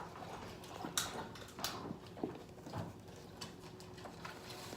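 Light clicks and taps of plastic bottles and utensils against containers while bottles are emptied out, with two sharper clicks close together about a second in and softer ticks after.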